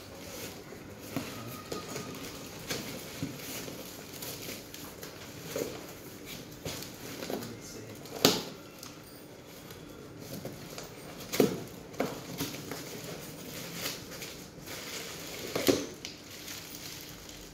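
Cardboard packaging being handled: a small inner carton shifted and lifted inside a larger box, with scattered rustles and short knocks, the sharpest about eight seconds in and two more a few seconds later. Near the end a plastic-wrapped part is pulled out.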